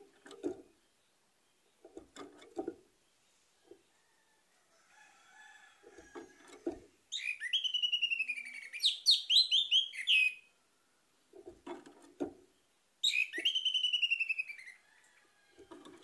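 Orange-headed thrush (anis merah) singing two loud phrases of quick, falling whistled notes, the first about seven seconds in and lasting some three seconds, the second near thirteen seconds. Between the songs come short, soft, low flutters of the bird moving about its cage.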